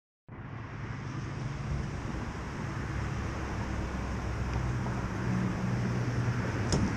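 A motor running steadily under a constant rushing noise, with a low hum that holds the same pitch throughout.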